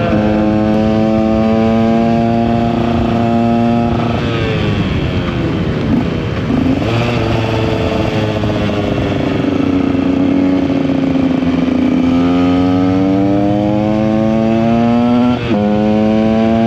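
KTM 125 EXC's two-stroke single-cylinder engine running under way. It holds steady revs for about four seconds and falls off as the throttle closes. It then revs up steadily and drops suddenly at an upshift near the end.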